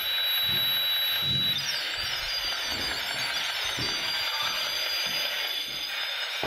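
Steady static hiss with a thin high electronic whine that shifts to a higher pitch about a second and a half in.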